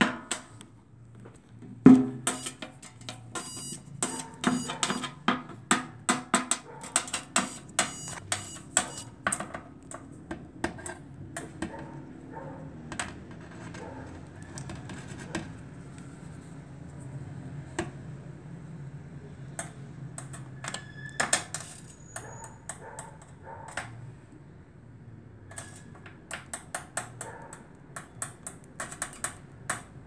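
Irregular clicks and taps, several a second at times, from multimeter probes and hands knocking against the sheet metal and wiring of an opened microwave oven, the loudest about two seconds in.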